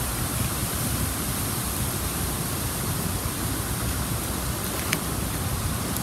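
Steady, even background hiss with no distinct source, plus a faint sharp click about five seconds in.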